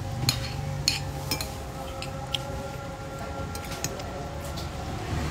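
Metal spoon and fork clinking against a glass bowl during eating: a handful of sharp, separate clinks at irregular intervals, over a steady low background hum.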